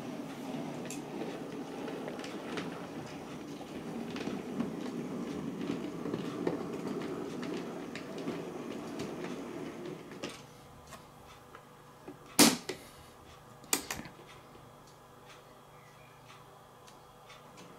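OO gauge model train, a Hattons Andrew Barclay 0-4-0 saddle tank with a rake of 16-ton mineral wagons, running slowly along the track with a steady low rumble. The rumble stops about ten seconds in. A few sharp clicks follow, the loudest two about a second apart.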